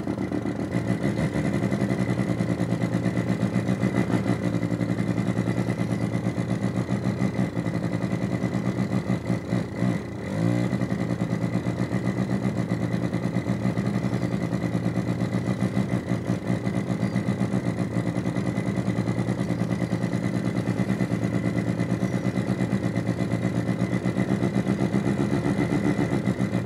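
Synthesized engine sound from two function generators in sweep mode, played through a small amplifier and loudspeaker: a rapid, steady engine-like throb over a thin high whistle. About ten seconds in it drops out briefly with a short pitch glide as the settings are changed.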